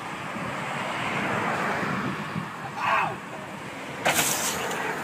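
Steady wind noise on the microphone, a brief shout about three seconds in, then a sudden crash about a second later as a person drops from a height and lands.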